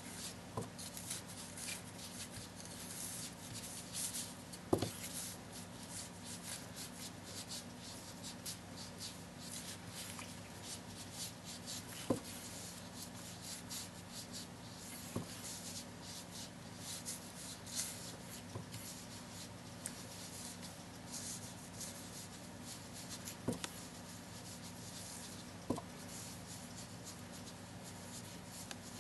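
Sponge rubbing and dabbing across cardstock: a continuous soft, scratchy rubbing broken by a few light taps, over a faint steady hum.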